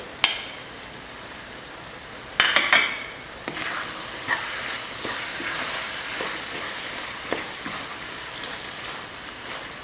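Thick tomato sauce sizzling in a frying pan while a wooden spoon stirs spices into it. The spoon makes a louder scrape-and-clatter against the pan about two and a half seconds in, then the sizzling goes on steadily with a few light knocks of the spoon.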